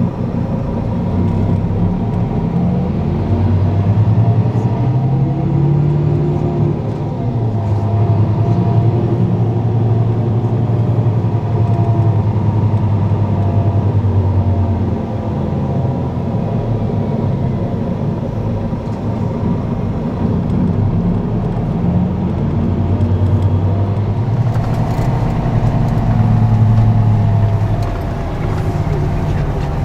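Tour bus engine and road noise heard from inside the cabin while driving, with a steady low hum whose pitch rises and falls several times as the bus changes speed.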